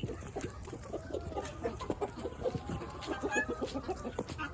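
A flock of chickens clucking, many short low clucks overlapping in quick succession, with a few higher chirps about three seconds in.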